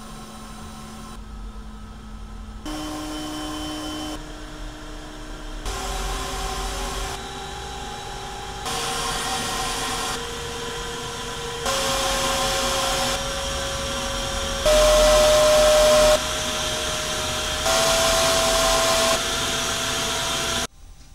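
CPAP blower fan on a VzBoT 330 3D printer running at stepped power settings: a steady whine over rushing air that jumps up in pitch and loudness every few seconds. At each setting it first runs on the original CPAP mount, then quieter through the plaster-filled external/internal muffler, only about 5 decibels less. It cuts off suddenly near the end.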